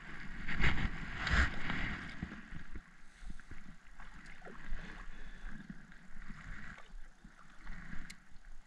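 Kayak paddle dipping and splashing in the river, loudest in the first two seconds, then softer water sounds around the kayak.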